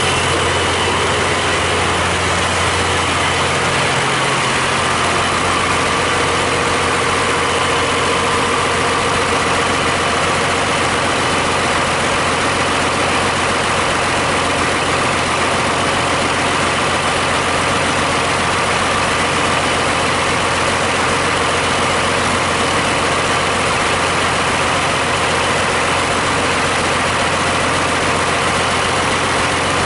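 Used Cummins 5.9L 12-valve inline-six turbodiesel running steadily on a run-in test.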